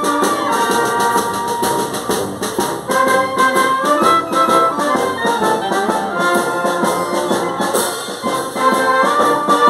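Italian town brass band playing a tune, trumpets carrying the melody over lower brass such as tuba.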